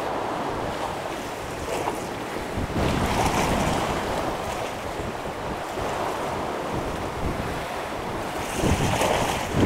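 Sea waves washing against a rocky shoreline, with wind buffeting the microphone; the rush swells and eases, rising again near the end.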